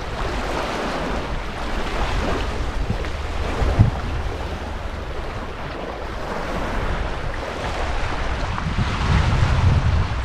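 Wind buffeting the microphone outdoors, a steady low rumble that swells and eases, with one brief knock about four seconds in.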